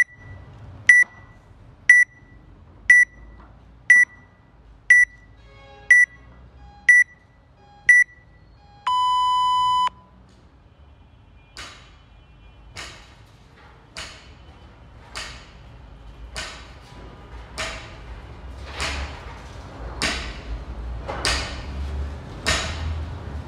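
Gym interval timer beeping once a second through a countdown, then a long start tone about nine seconds in. From about 11 seconds, short swishing sounds come about once a second, in time with barbell deadlift reps, growing louder.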